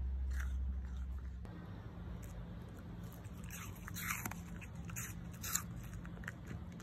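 Bichon Frise chewing a piece of apple, with a handful of crisp crunches in the second half. A low hum runs under the start and stops about a second and a half in.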